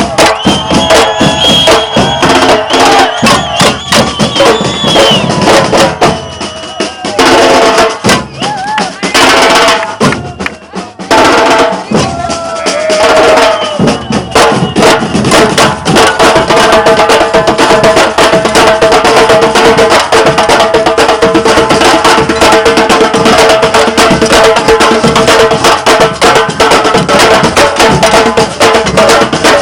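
Batucada samba percussion ensemble drumming loud and dense. In the middle there is a stretch of stops and short breaks, and then the full rhythm comes back in steadily.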